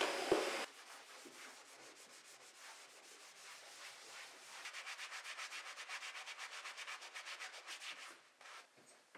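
A hand scrub brush scrubbing a soapy wood-look floor with quick back-and-forth strokes, about eight a second from about halfway through, softer before. It opens with a steady rushing noise that cuts off with a knock under a second in.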